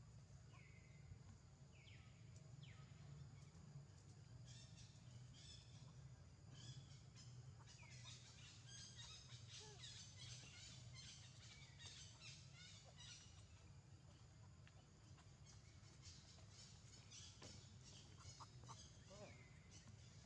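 Faint outdoor ambience of birds calling: a few short, downward-sweeping calls and two long stretches of rapid high chirping, over a steady low hum.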